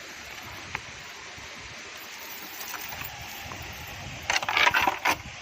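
Bamboo raft knocking and clattering in a quick run of knocks near the end as it is boarded and set moving, over a steady rush of river water.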